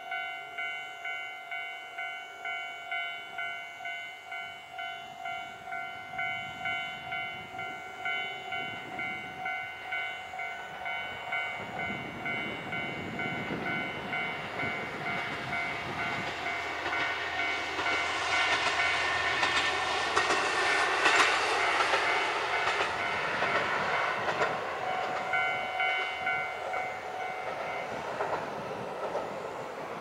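Japanese level-crossing warning bell ringing in a steady rhythm, about one and a half strikes a second, as a KiHa 150 diesel railcar approaches and passes. The train's engine and wheel noise builds from about the middle and is loudest around two-thirds of the way through. The bell stops near the end as the crossing clears.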